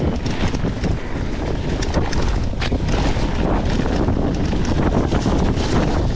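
Rushing wind on the microphone over the rumble of mountain-bike tyres rolling fast on a dirt trail, with frequent small clicks and rattles from the e-bike over the rough ground. The sharpest knock comes a little before the halfway point.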